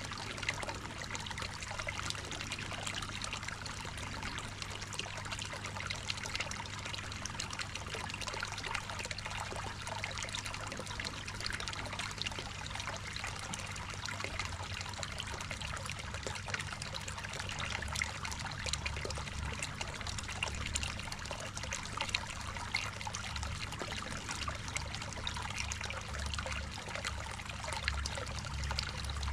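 Water trickling and splashing steadily into a koi pond, with a steady low hum underneath. A low rumble comes and goes in the second half.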